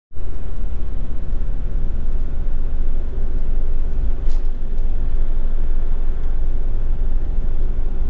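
Camping car driving steadily along an open road: engine and tyre noise as a steady low rumble.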